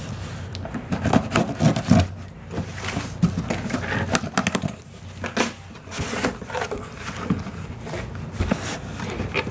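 Cardboard shipping box being opened and handled by hand: irregular crackling, scraping and rustling of cardboard and packing tape, with small knocks as the flaps are pulled and the shoebox inside is moved.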